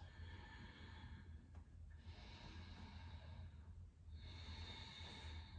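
Faint, slow breathing close to the microphone, three breaths in a row, over a steady low hum.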